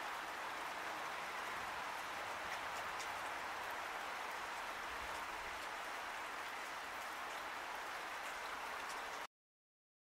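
Steady rain falling, an even hiss with a few faint drop ticks, cutting off abruptly near the end.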